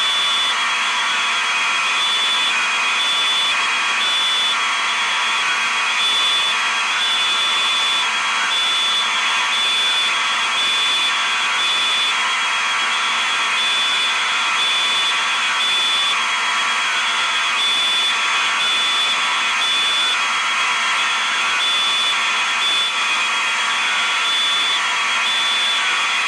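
Fire alarm sounding without a break: a loud, steady, high-pitched tone.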